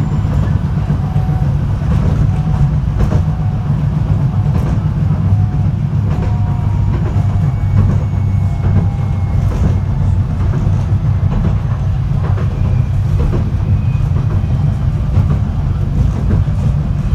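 Running noise inside a moving Fukui Railway F1000 series light-rail car: a steady low rumble with occasional clicks of the wheels over the track.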